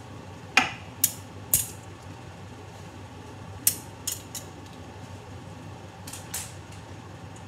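A K'nex toy ceiling fan spinning, its plastic rods and connectors clacking sharply in three short bursts of two or three clacks a couple of seconds apart.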